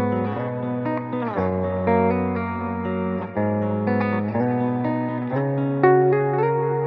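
Strandberg Boden 7 True Temperament seven-string electric guitar playing a clean-tone riff: ringing, sustained chords with a new chord struck every second or two.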